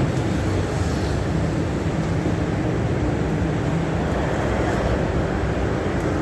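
Steady low mechanical noise with a faint steady hum running through it, unchanging throughout.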